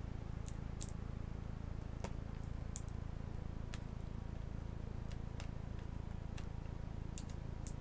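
Scattered small clicks and ticks of a small screwdriver prying an adhered webcam board off the plastic mount of a laptop display lid, the two sharpest near the end, over a steady low hum.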